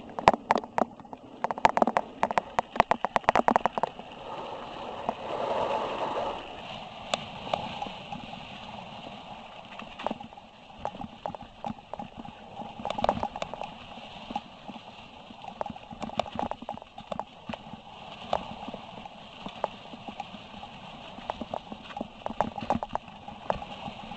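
Mountain bike riding over rough ground: a dense, irregular clatter of knocks and rattles as it goes over bumps, with tyres crunching over gravel and dry leaves. A short rushing noise comes about four to six seconds in, and the knocks are scattered after that.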